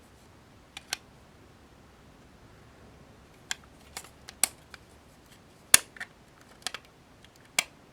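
About ten sharp, scattered clicks and taps of acrylic case panels and a circuit board being handled and fitted together. The loudest click comes near the middle.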